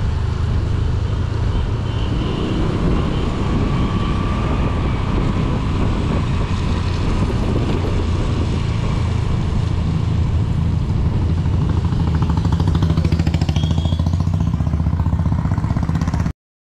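Scooter riding along a rain-wet road, heard from the rider's seat: a steady engine note with the hiss of tyres and road noise. It grows a little louder near the end, then cuts off abruptly.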